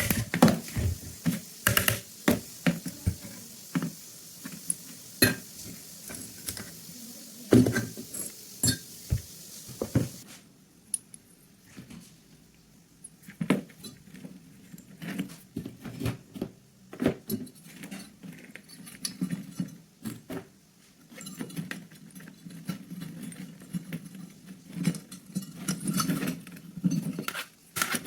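Irregular clicks, clinks and knocks of metal gun parts being handled and worked on by hand, some strikes landing with a dull thud.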